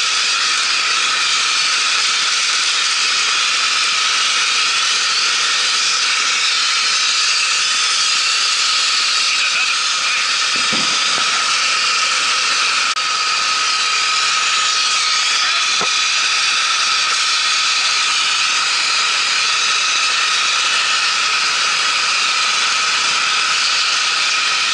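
Shotcrete spraying from a nozzle: a loud, steady hiss of compressed air and concrete, with a faint high tone running through it.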